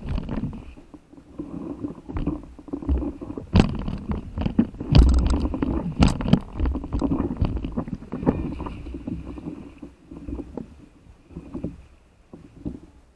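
Sea water rushing and splashing against an inflatable stand-up paddle board as it moves through choppy water, with sharp irregular slaps of water that are loudest midway, dying down near the end.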